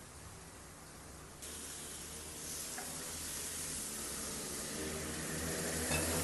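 Food sizzling on a hot cooking surface. It starts suddenly about a second and a half in and grows louder.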